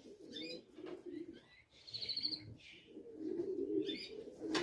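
Racing pigeons cooing in low, repeated warbles, with small birds chirping higher up.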